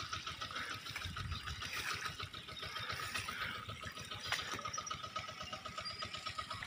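Field ambience: a steady high-pitched trilling chorus with a low, uneven rumble underneath.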